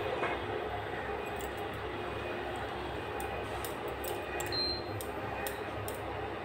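Wooden spatula stirring and scraping thickening milk in a non-stick frying pan, with light taps against the pan, over the steady whir and hum of an induction cooktop. A short high beep about four and a half seconds in.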